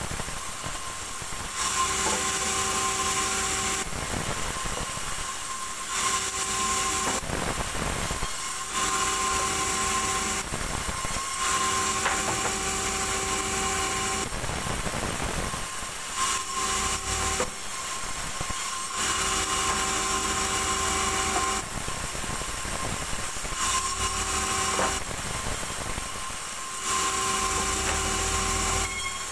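Vertical band saw cutting wood into boards in repeated passes a few seconds long, with short drops in between. A steady whine of several pitches runs under the cutting noise.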